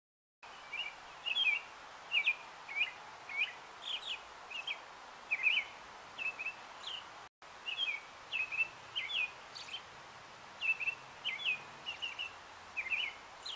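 American robin singing: a steady run of short, clear, slurred notes in quick phrases, over a faint outdoor hiss. The sound cuts out for an instant about halfway through.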